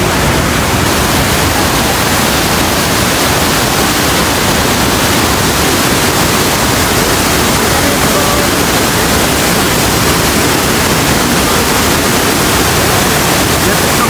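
Rhine Falls waterfall: a loud, steady rush of water from the river plunging over the rocks.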